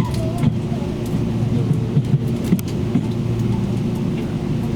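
Taiwan Railway Tze-Chiang express train running, heard from inside the passenger car: a steady low rumble with a few sharp knocks from the wheels and track in the middle.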